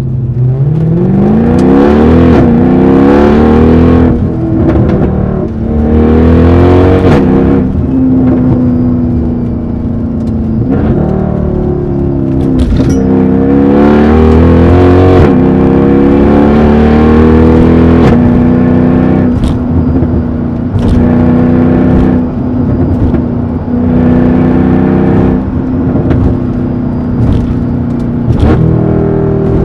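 Mercedes-AMG E63's V8 with a loud exhaust accelerating hard: engine pitch climbs and drops back at each gear change, over and over, with brief cracks at many of the shifts.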